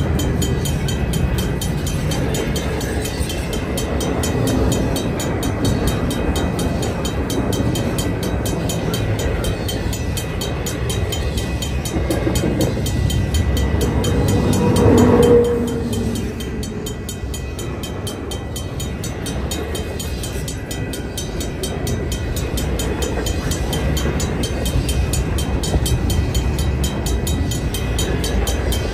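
Freight train cars rolling past close by, a steady rumble of wheels on rail. It swells to its loudest about halfway through, with a brief low tone, then drops back.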